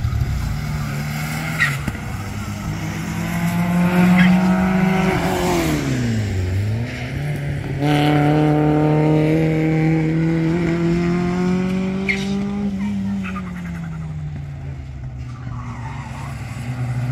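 A race car's engine revving hard on a circuit. Its note drops steeply as it brakes about six seconds in, then climbs again as it accelerates away. A few short squeals are heard along the way.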